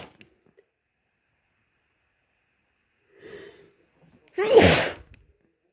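A person with a cold sneezing once: a soft, gasping intake of breath about three seconds in, then a loud, short sneeze with a falling voiced cry about a second later.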